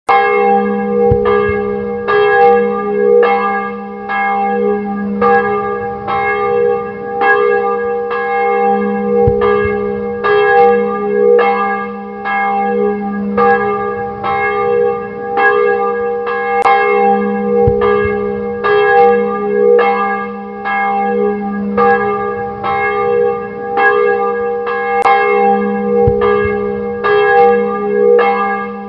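Several church bells pealing together, each strike ringing on under the next, with new strikes coming every half-second or so and a deeper stroke about every eight seconds.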